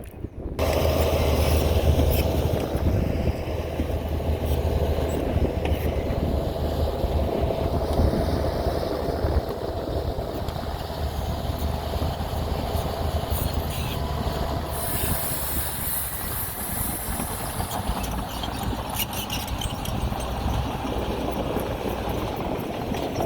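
Heavy diesel engine of earthmoving machinery running steadily with a low hum, cutting in abruptly about half a second in. A high hiss comes in for a few seconds past the middle, with a few short clanks.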